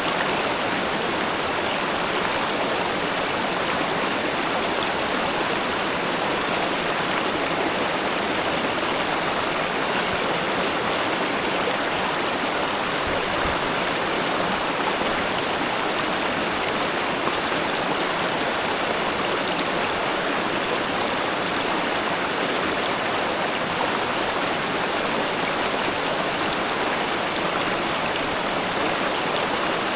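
River water flowing steadily: an even, unbroken watery rush.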